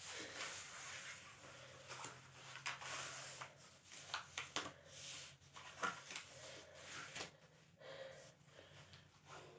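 Faint, irregular rustling of clothing and a person's breathing as she moves and tugs at her outfit, over a low steady hum.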